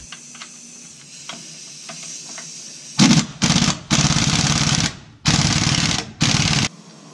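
Impact wrench hammering in five short bursts, starting about three seconds in, as it runs down the nut on the band clamp of a truck's air brake chamber, seating the half can over a new service-brake diaphragm. Faint clicks of the socket being fitted come before it.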